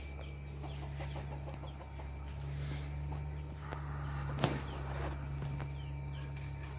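Chickens clucking in the background, with a steady low hum underneath. A single sharp tap about four and a half seconds in.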